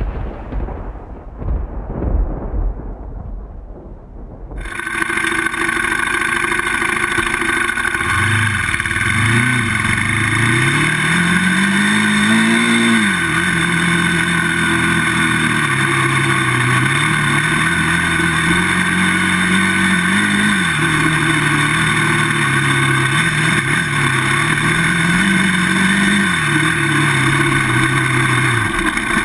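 A low rumble fading out over the first few seconds. Then, cutting in suddenly about four and a half seconds in, a Polaris Outlaw 525 ATV's KTM single-cylinder four-stroke engine running on the move, its revs rising and falling several times as the quad accelerates and eases off. Wind and trail noise hiss over the front-mounted microphone.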